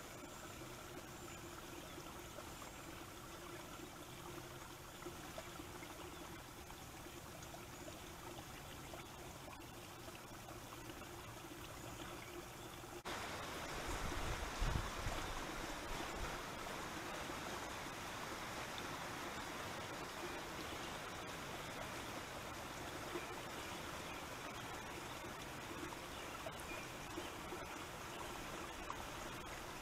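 Wind blowing across a trail camera's microphone as a steady hiss. It steps up suddenly about 13 seconds in, with low buffeting gusts just after.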